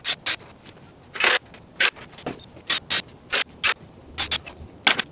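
Cordless drill driving screws into wooden pallet planks, heard as a run of short, sharp bursts at about two a second, the longest a little over a second in.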